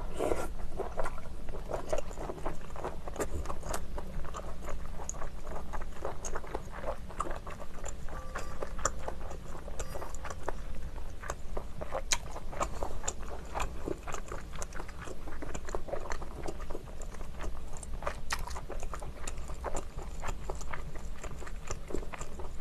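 Close-miked chewing of a mouthful of shellfish meat, many small, irregular wet mouth clicks and bites.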